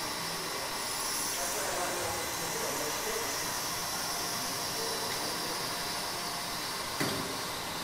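Steady even hiss of background noise, with one short click near the end.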